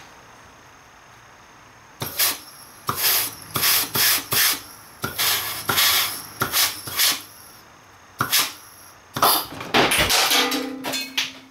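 Compressed-air blow gun fired in many short hissing blasts into an oil passage of a 42RH/A500 transmission case, to blow the accumulator piston out of its bore. About ten seconds in, a longer, louder blast with a knock as the piston and spring are blown out.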